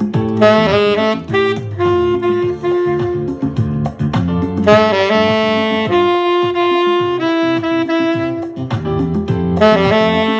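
Alto saxophone playing a smooth jazz melody of held and moving notes over a backing accompaniment with a bass line.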